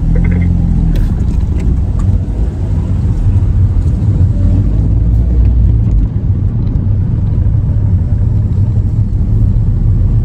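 A car running, heard from inside its cabin as a steady low rumble.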